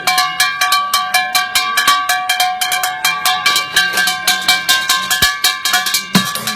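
Rapid melodic percussion: quick strikes on ringing, pitched objects, playing a changing tune. About six seconds in, lower thumps join in a steady beat.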